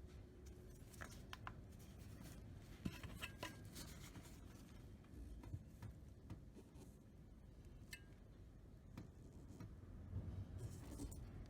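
Quiet room with scattered light clicks and taps, irregular and a second or more apart, over a faint low hum.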